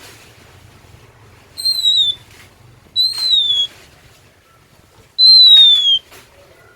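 Oriental magpie-robin (kacer) singing: three loud, clear whistled notes, each gliding slightly down in pitch, with the last the longest and loudest.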